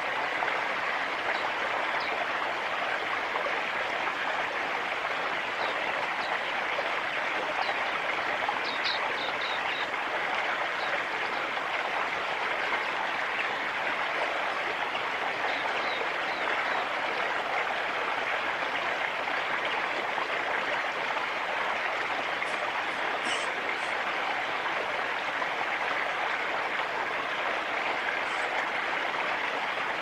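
Steady rushing noise like running water, with a few faint, short, high bird chirps, a small cluster about a third of the way in and a sharper one about three quarters through.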